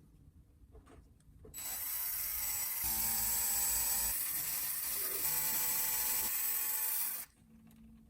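A small power tool runs for about six seconds, starting about a second and a half in, its pitch rising as it spins up, then cutting off abruptly near the end; faint ticks and clicks come before it.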